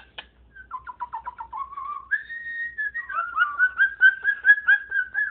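Moluccan cockatoo whistling: first a run of short notes, then a held whistle about two seconds in, then a quick string of repeated whistled notes, about four a second.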